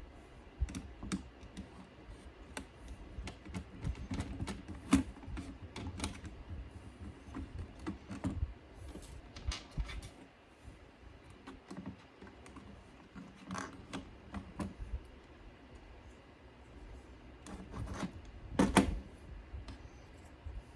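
Irregular small clicks, taps and light knocks of hard plastic and metal parts being handled, as in work on the insides of a CD receiver during an optical pickup replacement. The loudest knocks come about five seconds in and again near the end.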